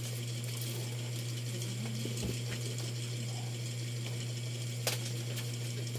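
Quiet room tone dominated by a steady low hum, with a few faint clicks and one sharp tap near the end.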